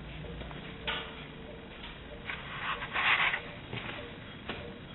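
Scuffing and rubbing noises from someone moving about on a concrete floor: a few short scrapes, the loudest about three seconds in.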